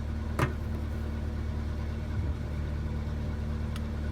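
An engine idling steadily, with a sharp click about half a second in.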